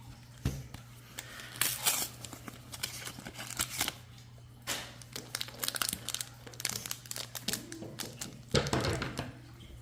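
Foil booster-pack wrappers of Pokémon cards crinkling and being torn open, in irregular bursts of crackling, the loudest near the end.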